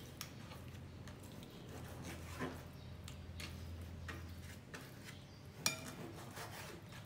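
Kitchen knife cutting through raw pork belly on a plastic cutting board, with a few light knocks of the blade against the board, the sharpest near the end, over a faint low hum.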